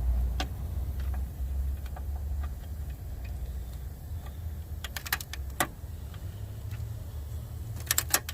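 Scattered sharp clicks and clinks of hand tools working in a car's engine bay, a few at a time, over a steady low hum.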